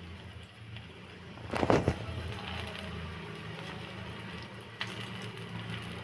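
Steel spoon spreading minced mutton keema onto bread slices on a tawa, with one short loud scraping noise about a second and a half in and a light click near five seconds, over a steady low hum.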